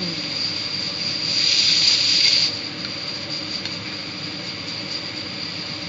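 Pot of sinigang broth boiling on the stove: a steady hiss of bubbling and steam, swelling louder for about a second partway through, with a steady high whine underneath.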